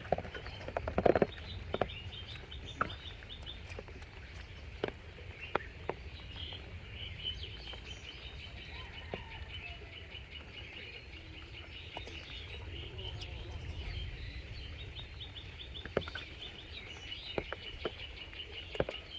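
An animal's rapid ticking trill, many pulses a second, in long runs that come and go, over a steady low rumble, with scattered sharp clicks and knocks, the loudest a cluster about a second in.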